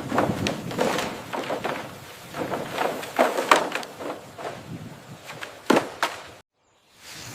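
A run of irregular knocks, thuds and scraping noises, which cuts off abruptly about six and a half seconds in.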